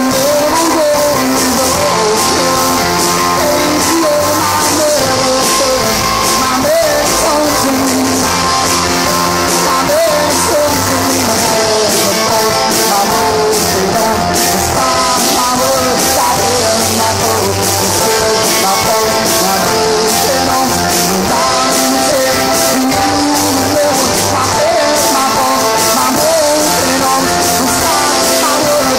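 Live rock band playing: a man singing over keyboard, electric guitars and a drum kit with steady cymbals. The sound is loud and rough, recorded on a phone.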